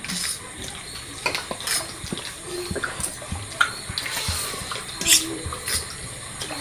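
Close-up eating sounds from chow mein noodles: wet slurping and chewing noises, with scattered clicks of utensils and dishes.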